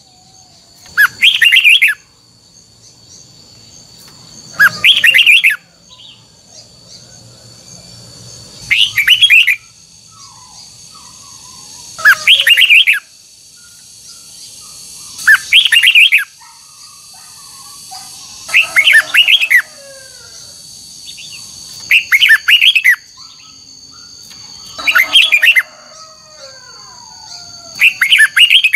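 Red-whiskered bulbul song: a short, loud phrase repeated nine times at an even pace, about every three and a half seconds, with softer gliding calls between phrases and a steady high whine underneath.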